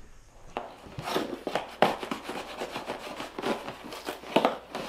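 Cardboard shipping package being opened by hand: an irregular run of rasping, scraping and tearing strokes starting about half a second in.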